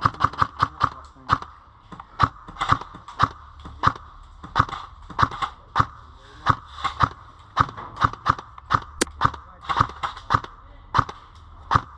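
Airsoft guns firing single shots in quick, irregular succession, a sharp pop about two or three times a second.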